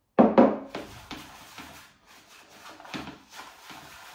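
Hands mixing damp, fine groundbait in a plastic box: irregular rubbing and scraping, loudest just after the start and again about three seconds in.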